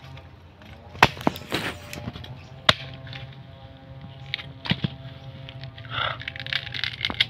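Machete chopping into nipa palm fruit segments: a handful of sharp, irregularly spaced cracks as the blade strikes and splits the husks.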